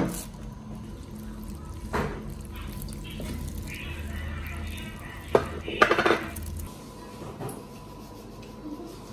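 A bowl knocked down onto a table, then chopsticks mixing noodles in a plastic-bag-lined bowl: rustling and scraping, with a cluster of sharp clacks about five to six seconds in.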